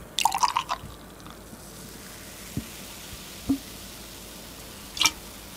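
Beer poured from a can into a glass: a splashing glug in the first second, then a steady fizzing hiss as the stream and foam fill the glass. A couple of soft knocks and a sharp tick about five seconds in.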